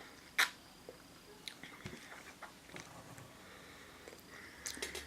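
Soft mouth sounds of someone eating or chewing between sentences, with one sharp click about half a second in and a few faint clicks near the end.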